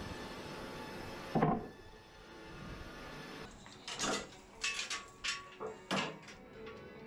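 Sawn wooden boards knocking against each other and the steel bed of a band sawmill as they are handled. There is one heavy knock about a second and a half in, then a quick run of sharper knocks in the second half. A steady machine hum drops away after the first knock.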